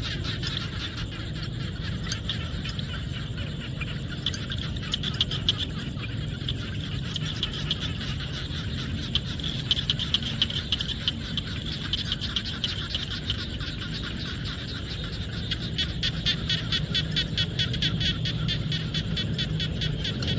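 Chorus of frogs in rice paddies, a dense stream of rapid clicking calls that swells near the end, over a high pulsing trill that stops about twelve seconds in.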